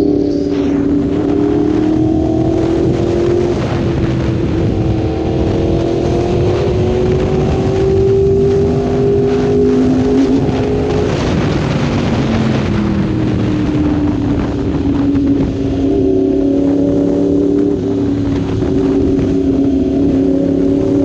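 Yamaha R1 60th Anniversary's crossplane inline-four, through an Austin Racing exhaust, heard from the rider's seat while under way. The engine note climbs as the bike accelerates, drops back about halfway through as the throttle eases, then holds a fairly steady cruising pitch.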